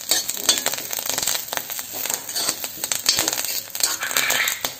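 Fresh curry leaves, shallots and chillies crackling and sizzling in hot oil in a wok, stirred with a steel spatula that scrapes and taps irregularly against the pan.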